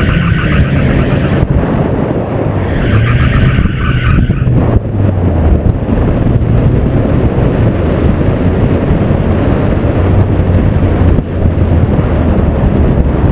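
Engine of a Suzuki rear-wheel-drive slalom car driven hard through the course, its revs rising and falling between the gates. A higher-pitched layer of the engine noise cuts off sharply about five seconds in.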